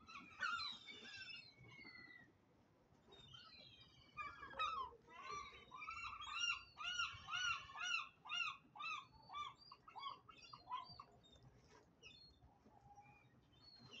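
Gulls calling: a few loud cries at the start, then a long run of repeated yelping calls, about two or three a second, from about four to eleven seconds in.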